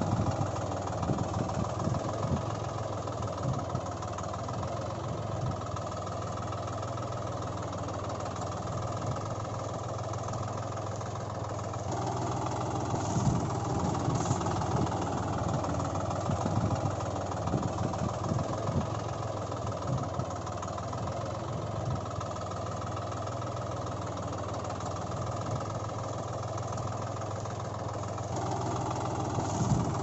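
Engine-sound effect of a tractor running steadily at idle with a knocking throb, laid over toy tractors that make no engine noise of their own. The sound shifts abruptly about twelve seconds in and again near the end, as the clip is edited.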